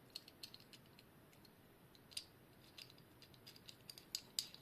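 Faint, irregular small clicks and taps of a tool working on the plastic parts of an opened quartz alarm clock movement during disassembly, with a slightly sharper click about two seconds in and a few more near the end.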